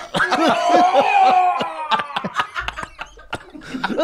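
Several men laughing hard in quick, breathy pulses; the laughter is loudest for about two seconds, then dies down.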